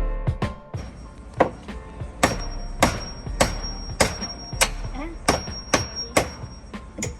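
A hammer striking in a steady rhythm, about two blows a second, a dozen or so sharp knocks in all.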